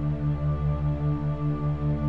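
Ambient background music: sustained chords over a low note that pulses about five times a second.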